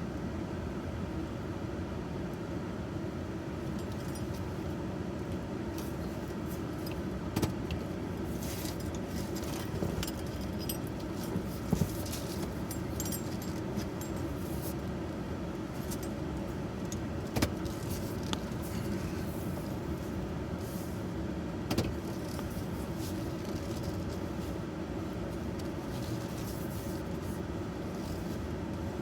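Truck running at low speed, heard from inside the cab as a steady engine and road hum. A few short, sharp clicks and rattles break in now and then, likely keys jangling.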